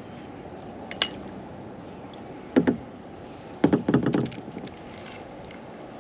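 Hard gear knocking and clattering in a plastic fishing kayak: a single knock about a second in, another halfway through, and a quick run of clatters shortly after, over a steady low hiss.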